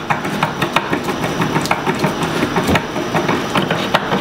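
Hand screwdriver driving a screw into a wooden cabinet panel: an irregular string of clicks and creaks as the screw turns in.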